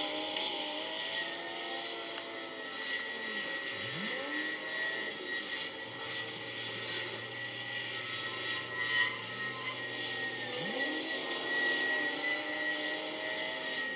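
Heavy diesel machinery working: the engines of a gut ship's grab crane and wheel loaders run and rev. Their pitch drops about four seconds in and climbs again near the end, over a steady high whine.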